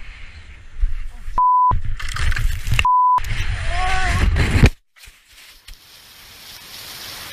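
Two short censor bleeps, a steady 1 kHz tone about a third of a second each, cutting over a shouted word about a second and a half apart. Around them, heavy wind rush on a helmet-mounted microphone as a skier slides and tumbles down a snowy rock face. There is a shout near the end of the rush, then the sound stops abruptly and only a faint hiss is left.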